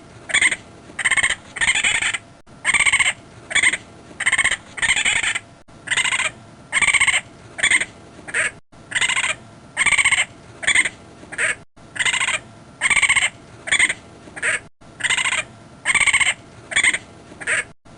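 Raccoon calling in a quick series of short, high-pitched calls, about two a second, with a brief break roughly every three seconds.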